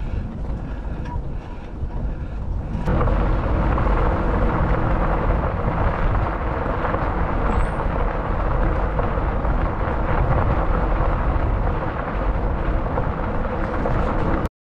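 Wind rushing over the microphone of a camera riding on a bicycle, mixed with the rolling noise of its tyres on a dirt trail. About three seconds in it jumps to a louder, steady rush on a gravel road, then breaks off briefly right at the end.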